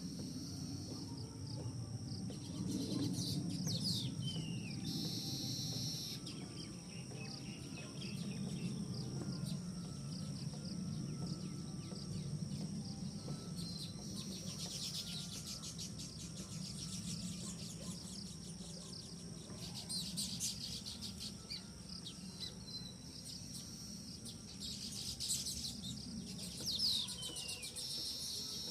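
Wild birds chirping and calling, with short falling whistles and quick trills now and then. Under them runs a steady high-pitched insect drone, with a low rumble of background noise.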